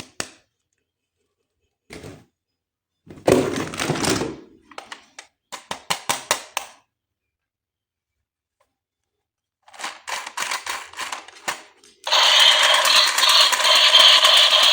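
Hard plastic toy parts clicking and a brief rustle of packaging, then about twelve seconds in a battery-powered toy switches on with a loud, steady mechanical buzz.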